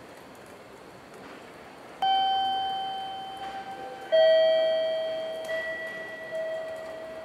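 Station public-address chime: two bell-like tones about two seconds apart, the second lower in pitch, each struck suddenly and ringing out as it fades.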